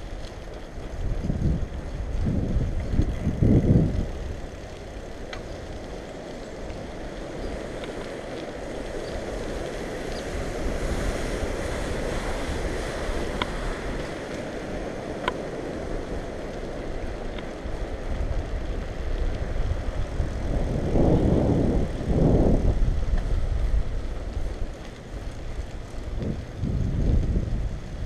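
Wind buffeting the microphone of a bicycle-mounted action camera while riding, coming in low gusts over a steady rush of tyre and road noise, with a few faint ticks.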